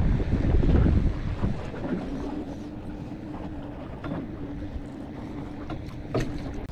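Wind buffeting the microphone on a small fishing boat, loud for the first second and a half and then easing, leaving a steady low hum and a few light clicks near the end.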